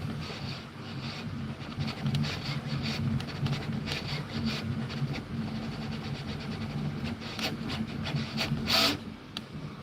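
3D printer at work: a steady low motor hum with quick, irregular ticks and rustles from the moving print head, the loudest a short rasp about nine seconds in.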